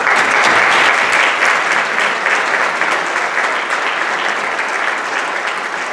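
Audience applauding in an auditorium, breaking out suddenly and loudest in the first second, then going on steadily and easing a little.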